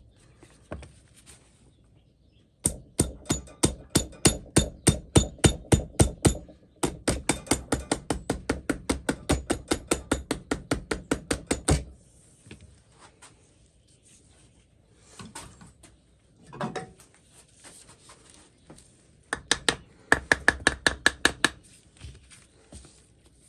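Rapid hammer taps driving a rubber-edged dust-shield part into a vintage Wilton vise, the blows softened through a piece of leather. Two long runs of quick knocks come a few seconds in, about five to six a second, and a shorter run follows near the end.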